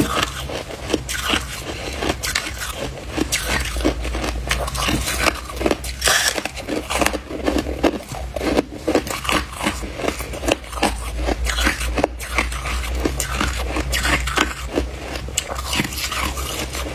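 Hard ice being crunched and chewed between the teeth, close to the microphone: a run of sharp, irregular crunches, several a second, with a low steady hum underneath.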